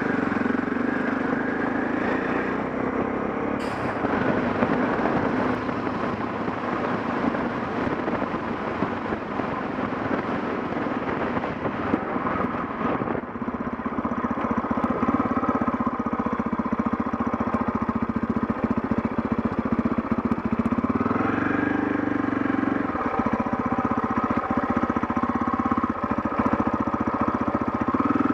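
KTM 640 Adventure's single-cylinder engine running while riding, with wind and road noise; the engine note shifts a few times as the speed changes.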